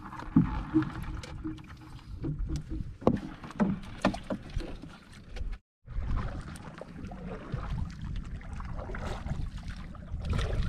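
Water splashing with knocks and clatter around a basin of freshly caught blue crabs. After a short break this gives way to a steady low rumble with wind buffeting the microphone.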